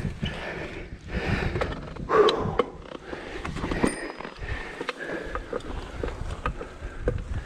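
Footsteps swishing through long grass and a mountain bike being pushed uphill beside them, its tyres rustling and its frame giving light clicks and rattles, with wind rumbling on the microphone. The loudest moment is a short burst about two seconds in.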